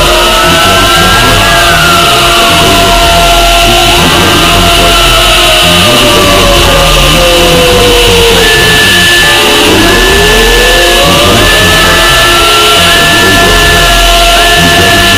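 Many copies of a sound effect stacked on top of one another and pitch-shifted, forming a dense, loud, distorted cacophony. Many overlapping tones glide up and down over one another.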